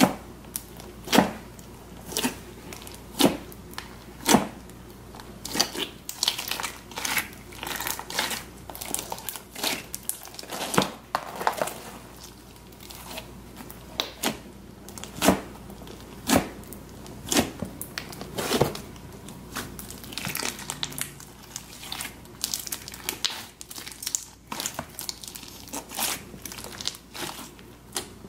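A large mass of pink slime with small beads mixed in, being kneaded, pressed and stretched by hand, making irregular squelching crackles and pops, roughly one a second.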